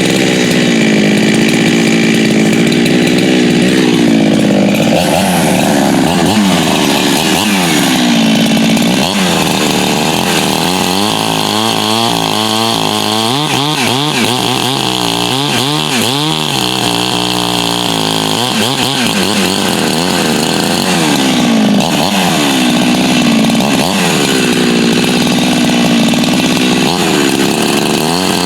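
86cc hybrid Husqvarna 372XP two-stroke chainsaw running and being revved up and down again and again, with quick bursts of throttle through the middle. It runs with a new steel impulse nipple that has cured an air leak, and the owner says it now runs stronger.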